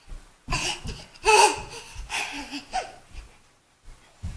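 A young child laughing in three bursts, the loudest about a second and a half in.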